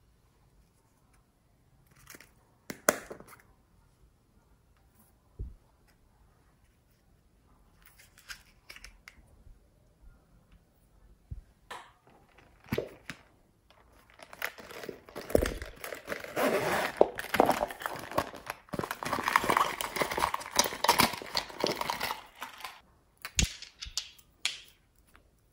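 Hands handling small plastic containers of slime add-ins: a few sharp clicks and taps, then about nine seconds of dense crinkling and crackling, the loudest part, followed by more clicks near the end.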